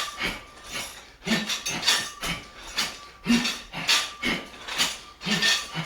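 A person breathing hard and rhythmically while doing overhead shoulder presses, with forceful exhales and voiced grunts about twice a second.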